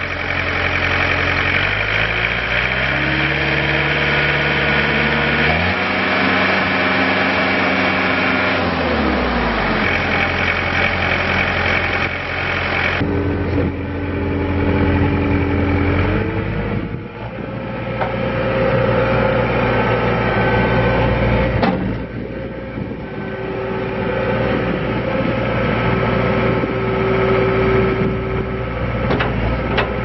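2007 John Deere 317 skid steer's diesel engine running: revved up a couple of seconds in, held high, then dropping back around nine seconds. From about thirteen seconds the machine is driven and works its loader arms and bucket, the engine rising and falling under load with a steady whine over it.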